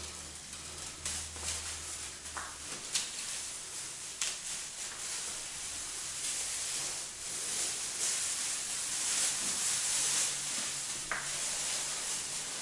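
Protective plastic film being peeled off a new decorative fireplace frame: a steady crackling rustle with scattered sharp clicks, growing louder about halfway through.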